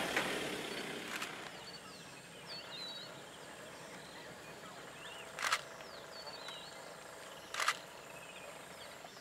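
African wild dogs feeding on an impala carcass: two short sharp cracks about two seconds apart, over faint bird chirping. A louder rumble fades away in the first second or so.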